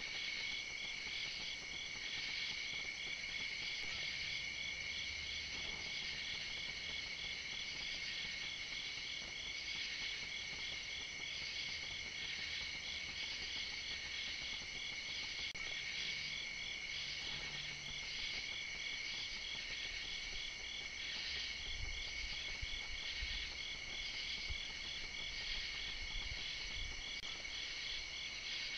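Steady chorus of night-singing crickets and other insects: several high trills layered on one another, one of them pulsing in an even, regular beat. Faint low rumbles come in during the later part.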